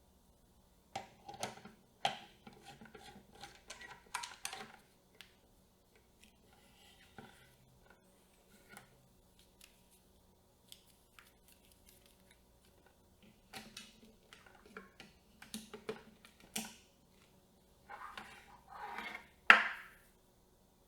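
Camera rig parts for a Z CAM E2-S6 being handled and fitted together: small clicks, taps and rubs of metal and plastic come in three bursts with a quiet stretch between them, and a sharp click, the loudest, near the end.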